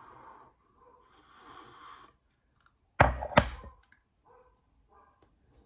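Hot tea slurped from a ceramic mug, heard as airy noise, then two sharp knocks about half a second apart as the mug is set down on the counter.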